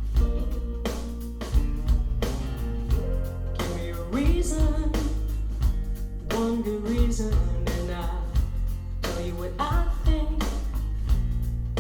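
Rock song played back through SVS Ultra bookshelf speakers and picked up in the room: heavy bass, electric guitar and a drum hit about twice a second, with a female voice singing from about four seconds in.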